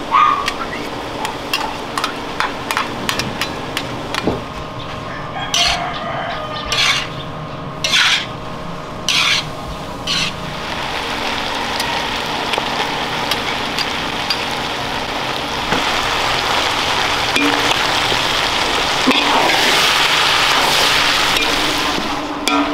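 Metal spatula stirring and scraping chopped pig and cow innards in a large aluminium wok, with many light clicks against the pan and several short scraping strokes in the first half. Liquid poured in from a cup then sets the hot pan sizzling, a hiss that builds steadily and is loudest near the end.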